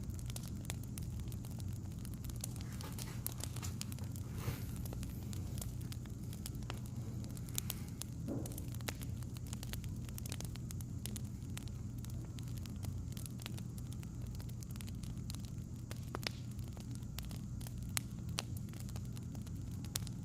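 Wood fire crackling: scattered sharp pops and snaps over a steady low hum.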